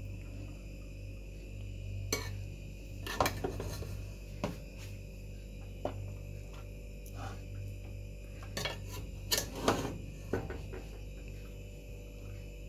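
Metal spoon clinking and scraping against a plate as rice is served and spread out: a scattered, irregular series of short clinks and scrapes, the sharpest about nine to ten seconds in.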